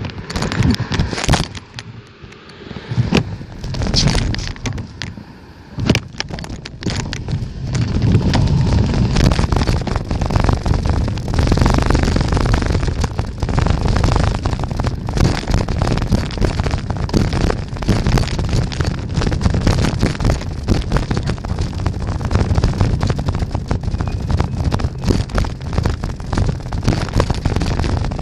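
Wind buffeting the microphone during a bicycle ride, along with clicks and rattles. It is patchy and quieter at first, then heavy and continuous from about eight seconds in.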